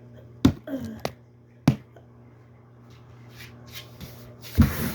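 Small tossed toys landing and hitting things: three sharp clicks in the first two seconds, then a louder clattering knock near the end.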